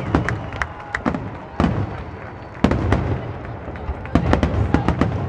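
Aerial fireworks shells bursting overhead: sharp bangs, many of them, coming in quick clusters with short gaps between.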